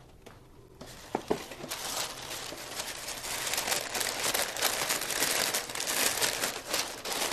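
Parchment paper crinkling as it is folded and tucked down over a disposable aluminum foil pan, with a couple of light knocks about a second in before the steady crinkling starts.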